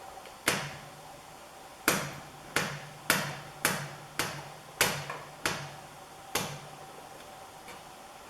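About nine sharp metal taps at an uneven pace, a metal tool chipping the paint off a painted-over grease fitting.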